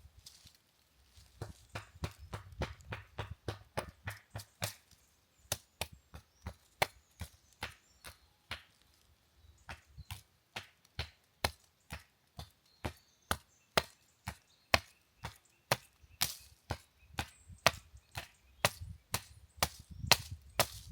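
Steady chopping: a long run of sharp strikes, about two to three a second, starting a second or so in, with a low rumble beneath the first few seconds and near the end.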